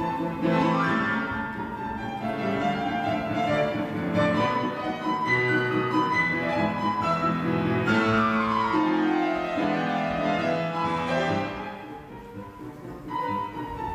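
Classical music with strings, flute and piano, with a long falling run of notes about eight seconds in and a brief lull near the end.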